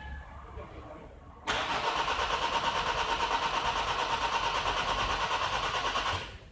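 Starter motor cranking a 2011 Nissan X-Trail's 2-litre common-rail diesel engine for about five seconds, with a rapid even pulsing, then stopping suddenly without the engine catching. A hard-start/no-start fault: rail pressure climbs only to about 100 bar during the crank.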